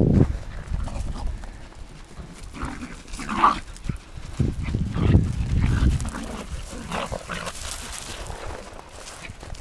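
A dog making a few short, irregular sounds, the clearest about three and a half seconds in.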